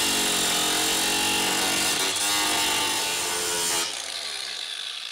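Angle grinder grinding the heads off steel rivets in a snowmobile's aluminum tunnel: a loud, steady grinding. About four seconds in, the grinding stops and the disc spins down.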